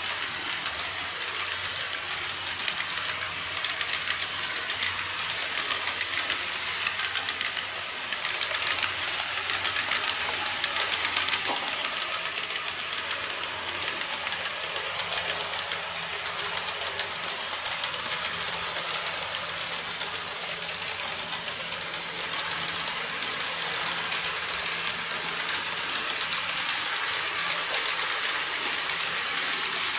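KATO N-scale model train, an EF65 electric locomotive model hauling 14-series coaches, running on the layout's track: a steady whirring with fine, rapid clicking of the wheels over the rails.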